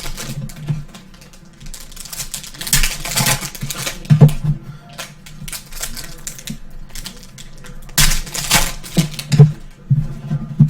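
Trading card packs and cards being handled: wrappers crinkling and cards sliding, flicking and tapping in irregular bursts of clicks and rustles.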